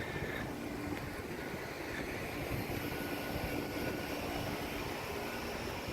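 A steady, engine-like mechanical drone, with a faint low hum that fades in and out.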